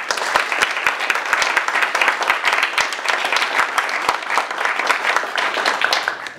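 Audience applauding, with many individual claps standing out in a dense patter, stopping abruptly near the end.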